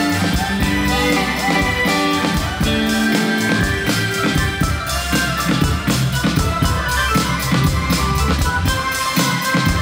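Comorian twarab (toirab) dance music with a steady drum beat and sustained melodic notes, playing loudly without a break.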